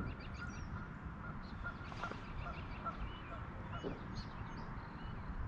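Birds calling in the background: many short, repeated high calls a few times a second over a steady low rumble.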